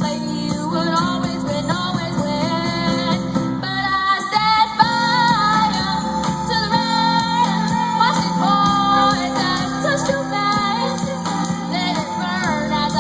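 Live band playing a pop ballad cover, with a woman singing lead over keyboard chords, bass and drums.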